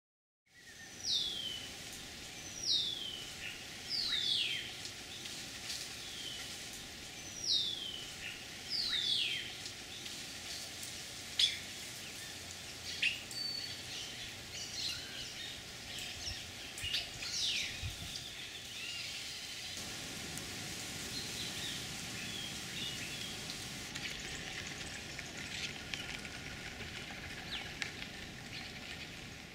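Birds calling: a series of clear, downward-slurred whistles, about five in the first ten seconds and roughly a second and a half apart, then scattered short chirps over a steady outdoor hiss that grows stronger about two-thirds of the way through.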